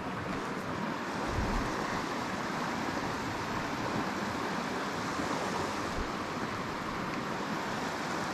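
Steady rushing of flowing creek water, a constant even noise, with two brief low bumps.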